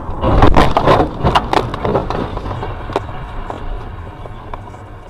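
A car crash: a rapid cluster of loud crunching impacts and clattering just after the start, thinning over the next few seconds to scattered ticks and rattles as it dies away.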